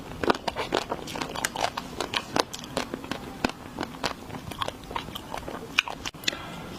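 Close-miked ASMR eating of desserts: biting and chewing with many sharp crunchy clicks, several a second, in an irregular rhythm.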